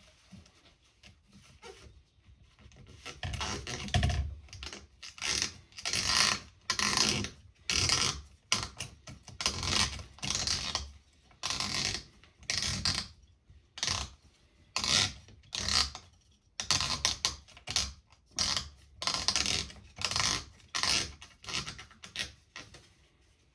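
A cloth-wrapped rod scrubbed back and forth inside the stripped compression cylinder of an Air Arms TX200 air rifle. The rasping strokes come about once or twice a second, starting a few seconds in and running on to near the end.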